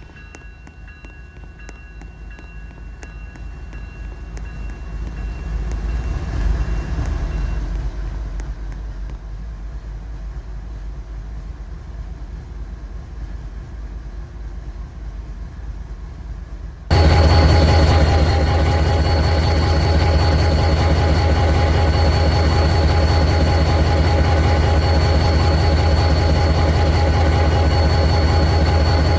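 A train rolling past with a low rumble that swells about six seconds in and then eases. About seventeen seconds in the sound jumps abruptly to a loud, steady engine drone with a fixed hum, a diesel locomotive running close by.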